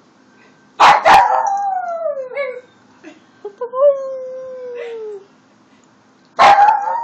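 Small dog howling along with sirens: three howls, each sliding down in pitch, the first and last opening with a loud harsh yelp.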